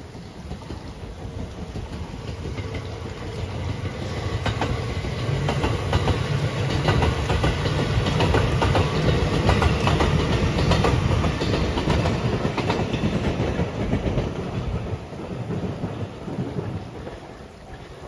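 JR Marine Liner rapid electric train passing on double track: its rumble builds, peaks with a quick clickety-clack of wheels over rail joints, then fades away. Steady rain hiss throughout.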